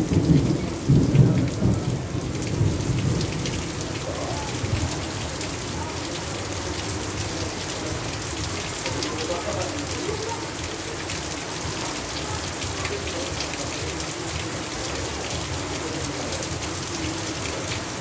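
Heavy rain falling steadily. A low rumble of thunder dies away over the first few seconds, leaving an even hiss of rain.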